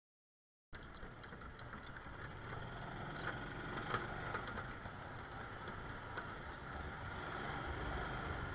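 Steady water-park ambience, a rush of moving water with a low rumble and a few faint clicks, cutting in abruptly under a second in after total silence.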